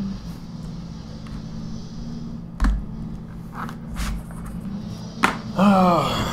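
Sharp clicks and knocks from the laptop's LCD data connector and panel being unplugged and handled, over a steady low hum. Near the end a loud mechanical whine slides down in pitch for about half a second.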